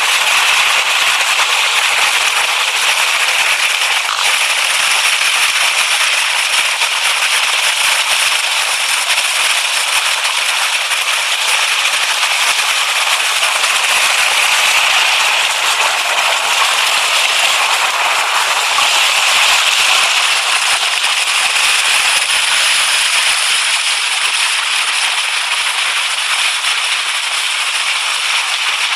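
Fast-flowing stream rushing over rocks close to the microphone: a steady, loud rush of whitewater that eases slightly near the end.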